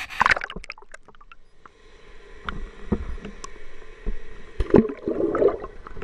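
Water sloshing against the hull of a small boat, with scattered knocks and thumps and a louder rough splash about five seconds in.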